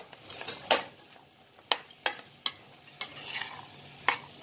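A spatula scraping and knocking against a non-stick kadai as boiled black chickpeas are stirred and roasted with gram flour and spices, with a faint sizzle underneath. There are about six sharp scrapes at uneven intervals, and a longer rough scrape about three seconds in.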